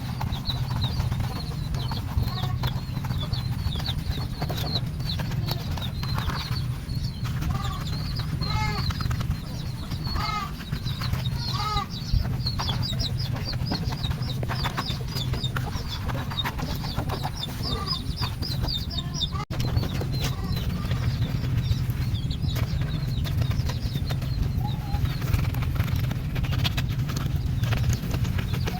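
Birds chirping over and over in short, high calls, over a steady low rumble.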